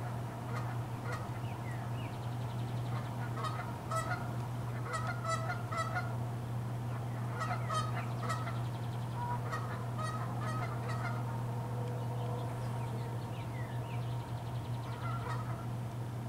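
Geese honking in several short bursts of calls, over a steady low hum.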